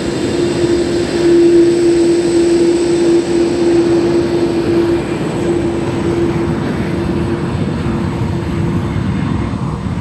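Jet airliner engines: a steady, loud jet noise with a droning hum, as an Airbus A320 at takeoff power rolls down the runway and lifts off. The hum fades gradually over the second half.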